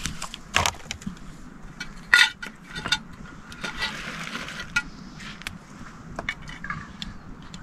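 Scattered clinks and knocks of hard objects being handled, the loudest just after two seconds in, with a short rushing hiss about four seconds in.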